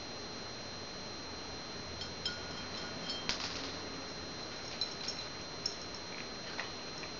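A cat eating dry kibble from a ceramic bowl: a scattering of light clinks and ticks as food and teeth knock the bowl, some ringing briefly, with a sharper clink about three seconds in.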